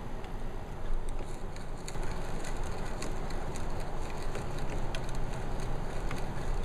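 Auger bit in a hand brace boring into a timber beam: the crunch and crackle of wood being cut and chips lifting out, with many small irregular ticks that thicken about a second in.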